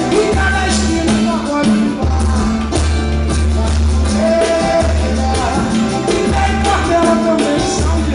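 Live pagode samba band playing a passage without lyrics: percussion keeps a steady beat under regular deep bass notes.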